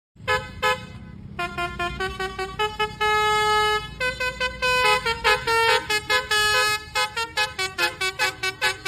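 A bus's Basuri 'telolet' multi-note horn playing a tune: short toots in a rhythm, a long held note a few seconds in, then quick short toots near the end, over a steady low rumble.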